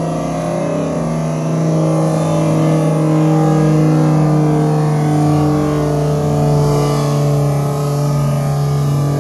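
Air Tractor firefighting plane's engine and propeller droning overhead: a loud, steady low hum that swells a little about two seconds in.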